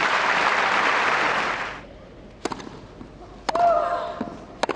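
Crowd applause that stops abruptly about two seconds in. Then come three sharp tennis-ball impacts, about a second apart. Right after the second one a player grunts, the grunt falling in pitch.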